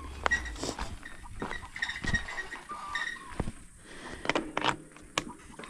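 Mountain bike rolling over a rough dirt track, the bike rattling with scattered sharp knocks and clicks as it takes the bumps.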